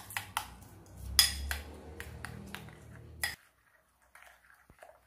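Metal spoon beating eggs with chopped onion in a glass bowl: quick, repeated clinks of the spoon against the glass over a wet churning sound, stopping a little over three seconds in.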